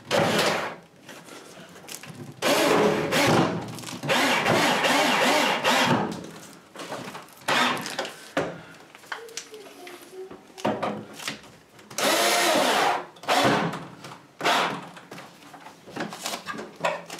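Power drill driving the mounting bolts of an over-the-range microwave up through the cabinet above, run in about four bursts of one to two seconds with pauses between.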